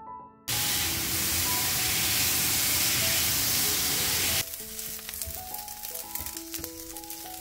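Chicken pieces sizzling loudly in hot oil in a ceramic frying pan, starting suddenly about half a second in. A little past the middle it drops to a quieter crackling sizzle with light clicks as the pieces are stirred with a spatula. Soft piano music plays underneath.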